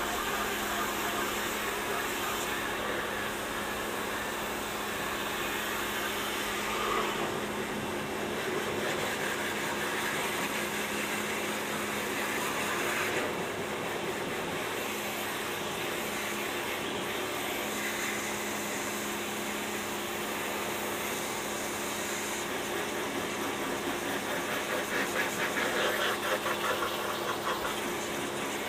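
Pressure washer running steadily with a constant hum, its water jet hissing against the car's rear; the hiss shifts as the jet moves across the body.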